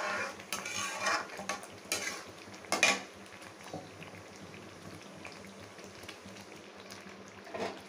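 A metal ladle stirring and scraping a thick, ghee-rich sweet rice-and-lentil mixture against the side of a heavy aluminium pan, with a few strokes in the first three seconds and a sharper knock near three seconds. After that the mixture simmers softly in the pan.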